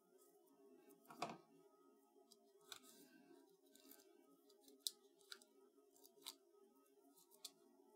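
Faint crinkle and scattered small clicks of double-sided tear tape being handled and pressed onto the back of a cardstock die cut, with the longest crinkle about a second in.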